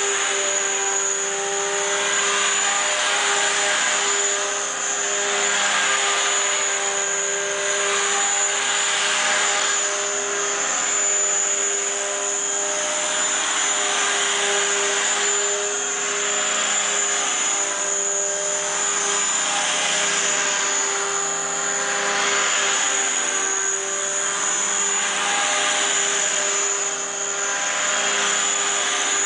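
Align T-Rex 500 electric RC helicopter in flight: a steady high whine from the motor and drivetrain over a rotor noise that rises and falls every few seconds as it moves about.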